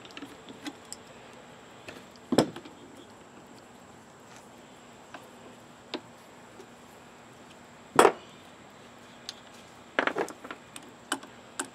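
Sharp metal clinks and knocks of an adjustable wrench against the aluminium lower of a 1979 Yamaha SR500 front fork as its end cap is worked off: a handful of separate strikes, the loudest about eight seconds in and a quick cluster of them around ten seconds.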